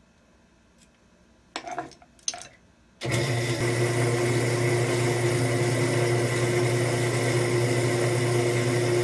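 A cylinder boring bar's electric motor switches on about three seconds in and runs steadily with a low hum and a high whine. A few light clicks of tool handling come before it.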